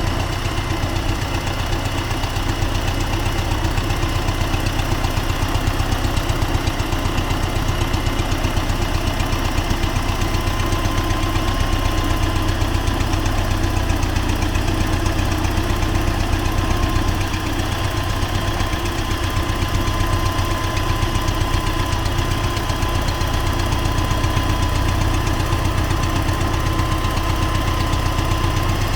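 T-40AM tractor's air-cooled diesel engine running steadily, with a fast, even beat and a thin steady whine above it.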